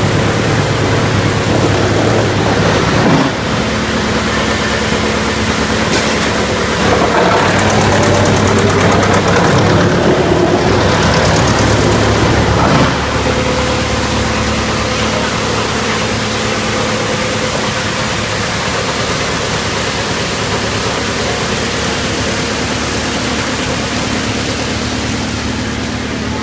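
Drum wood chipper running loud. It is rougher and louder in stretches, near the start and again through the middle, as it chips wood, then settles into a steadier hum with a held tone for the second half.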